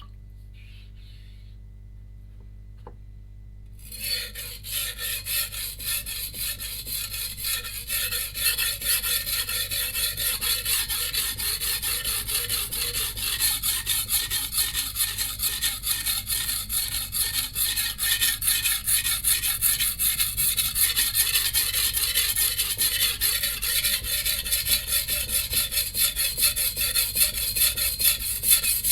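A low steady hum for about four seconds. Then a VG10 stainless Chinese cleaver is ground back and forth on a coarse 180-grit Suehiro Debado whetstone in rhythmic rasping strokes, grinding the chips out of the edge.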